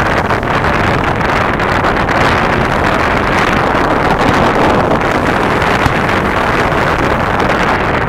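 Steady roar of surf on the beach mixed with wind buffeting the microphone, with one short sharp pop about six seconds in.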